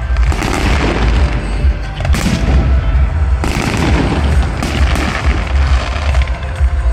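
Fireworks display: a dense, continuous barrage of booming shell bursts and crackles over a heavy low rumble, with music playing underneath.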